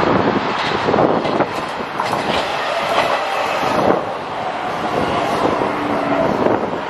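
Helsinki metro train pulling into the platform and running past close by, a steady rumble with wheels knocking over rail joints every second or so. A short steady hum from the train's equipment comes in near the end.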